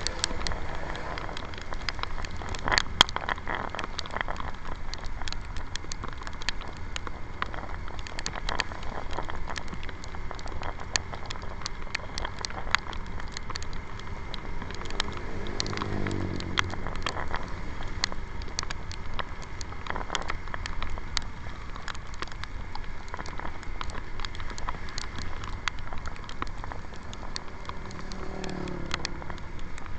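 Riding a motorbike in the rain: raindrops strike the handlebar camera as many short, scattered clicks over a steady low rumble of wind and road noise. An engine sound falls in pitch about halfway through and again near the end.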